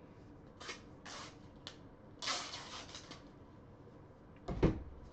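Off-camera handling noise: a few short scuffs and a longer rustle, then a dull thump near the end.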